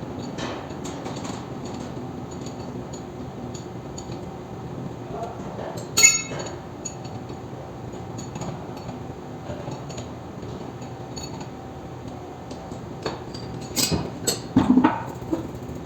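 Metal parts and tools clinking and clanking during work on a roller coaster wheel assembly, with one loud ringing clank about six seconds in and a cluster of sharper clanks near the end, over a steady background hum.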